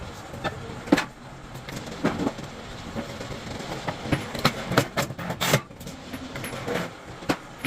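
Irregular metallic clanks and knocks of heavy steel parts being handled, several sharp strikes standing out over a steady background din.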